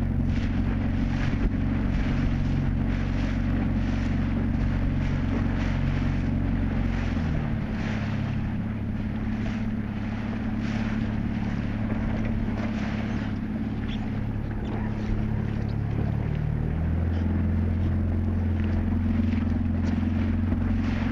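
Outboard motor of a coach boat running steadily, its engine note shifting about seven seconds in and again near seventeen seconds, with wind buffeting the microphone and water splashing against the hull.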